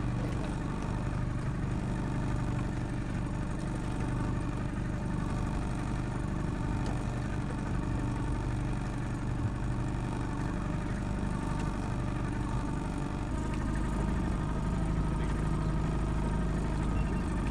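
Small boat's outboard motor running steadily at low trolling speed, an even engine hum that grows slightly louder in the last few seconds.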